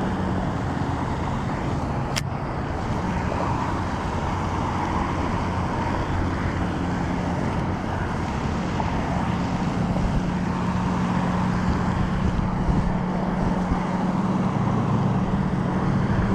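A steady engine hum with road-like traffic noise, and a single sharp click about two seconds in.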